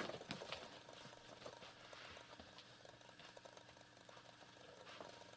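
Faint, scattered scratching and light rustling of a kitten's paws and claws on a rug.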